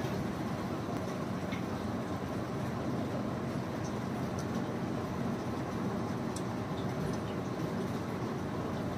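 Steady background rumble with a few faint, light clicks scattered through it.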